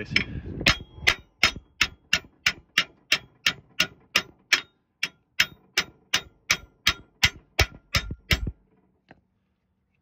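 Hammer blows on the bent steel bracket of a Boss RT3 plow's Smarthitch 2, bending it back into place so the new latch claw can grab the pin: a steady run of about two dozen metallic clangs, some three a second, that stops about eight and a half seconds in.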